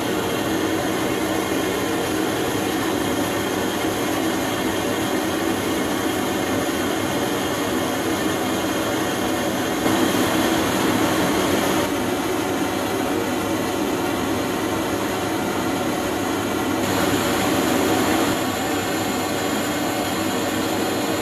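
Blowtorch flame burning steadily, heating a steel quick-release steering adapter so that it expands for a shrink fit onto the chilled steering shaft. The noise swells slightly twice along the way.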